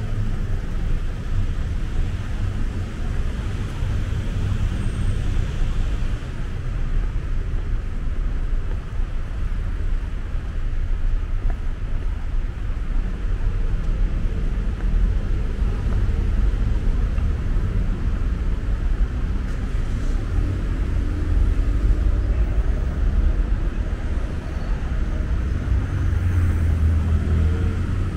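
City street traffic: cars driving by, a steady low rumble with tyre noise, and one engine climbing in pitch near the end as a vehicle accelerates.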